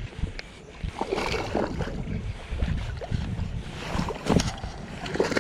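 Wind buffeting the microphone with a steady low rumble, under a string of irregular knocks and scrapes from a small, just-caught fish being handled.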